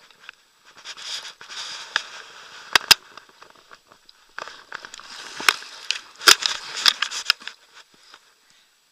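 Close rustling and crackling of a waterproof jacket rubbing against a body-worn action camera, in two spells, each with sharp clicks and knocks on the camera housing.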